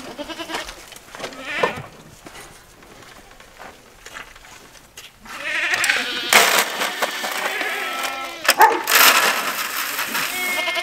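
Goats bleating with quavering calls, several times. Near the end dry feed pours with a rush into a feed pan.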